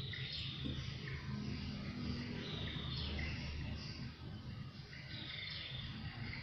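Small birds chirping in short, scattered calls over a steady low background hum.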